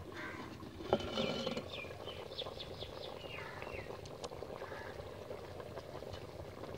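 A clay bowl lid knocks against the clay cooking pot as it is lifted off, about a second in. Small birds chirp in quick runs of calls over a faint steady background.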